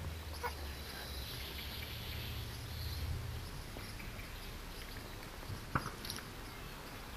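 Outdoor background noise: a steady low rumble with a faint hiss, and a few small clicks about half a second in and twice near the end.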